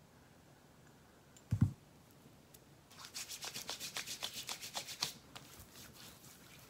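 A single dull thump, then about two seconds of quick rubbing strokes, about eight a second: hands rubbing face cream into the skin.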